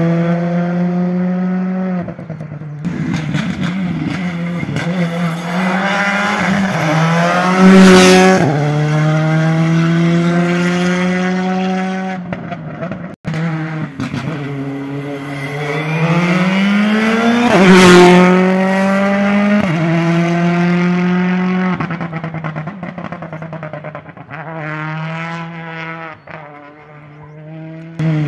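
Rally cars at full throttle, engines revving up through the gears in repeated rising sweeps. Two cars pass close by at their loudest, about eight and eighteen seconds in, and near the end another car is heard revving further off.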